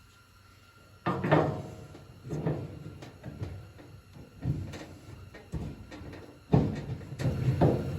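A run of clunks and knocks from dryer parts being handled during a repair, starting about a second in and coming roughly once a second, closer together near the end.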